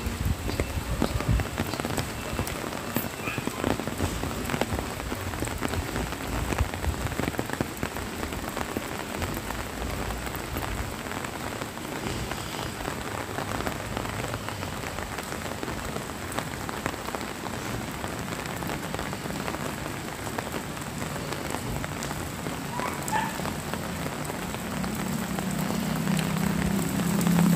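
Light rain falling on wet pavement, a steady hiss dotted with small drop ticks. Near the end a motorcycle engine approaches, growing louder.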